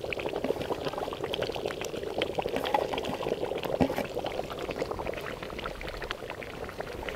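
Thick chicken curry gravy bubbling as it simmers in an open pot, with many small irregular pops.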